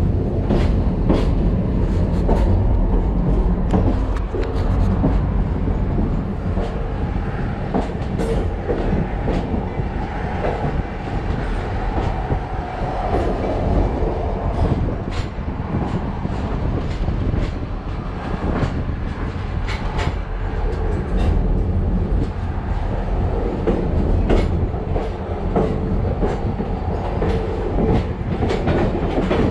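A moving passenger train heard from a coach window: a steady rumble of wheels rolling on the rails, with irregular clicks from the wheels over the track.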